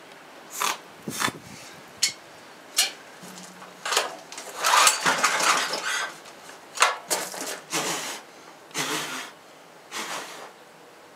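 Hand work on an engine: irregular metal clinks, knocks and scraping from tools and parts being handled, busiest a few seconds in, with no engine running.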